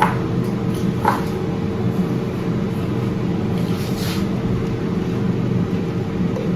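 A steady low mechanical hum, with two short clicks in the first second or so and a brief hiss about four seconds in.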